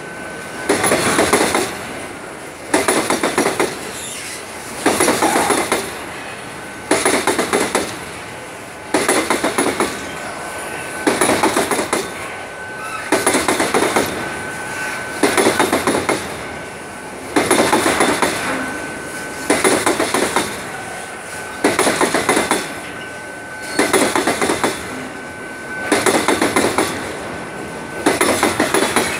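Freight train of covered hopper cars rolling past close by. The wheels clatter over the track in a burst of clacks about every two seconds, one burst as each car goes by, over a steady rolling rumble.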